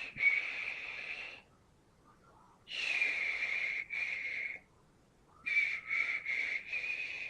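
High, hissing wheeze-like cartoon sound effect with a steady whistling tone, coming in four bursts with short silent gaps between them.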